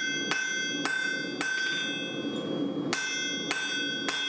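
Blacksmith's hammer striking on an anvil, steady blows about twice a second with a ringing steel tone held between them; the blows pause for about a second and a half in the middle.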